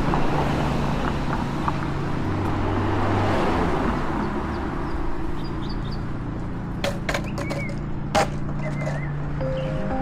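Roadside traffic noise with a vehicle engine going by. About seven to eight seconds in come a few sharp knocks, the last the loudest, as a longboard is set down on the pavement and stepped onto.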